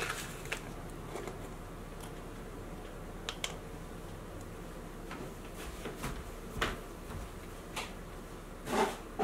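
A few scattered light clicks and taps of things being handled on a kitchen counter, several seconds apart, over a low steady room hiss.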